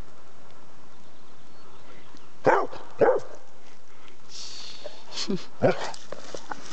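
Bernese mountain dog barking: two sharp barks about half a second apart, then a brief rustle and two or three more barks near the end.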